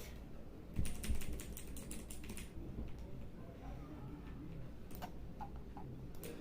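Typing on a Mars Gaming MKCLOUD mechanical keyboard: a quick run of about a dozen keystrokes in the first couple of seconds, then a few scattered key clicks near the end.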